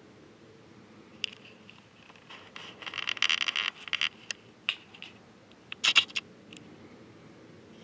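Handling noise on the camera: scattered clicks and scrapes, a dense run of rapid ticks about three seconds in, and a sharp loud scrape near six seconds.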